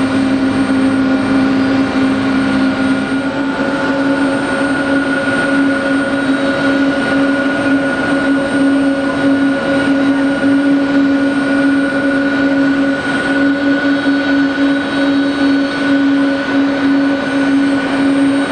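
Pratt & Whitney PW4074 turbofans of a Boeing 777-200 running at low taxi power as the airliner rolls along the apron: a steady engine whine with a strong low hum and higher tones over a rushing noise. A lower tone drops out about three seconds in.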